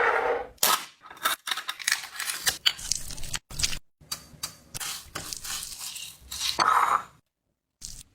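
Irregular short bursts of rustling, tearing and clicking handling noise, broken by two abrupt silent gaps, stopping a little after seven seconds in.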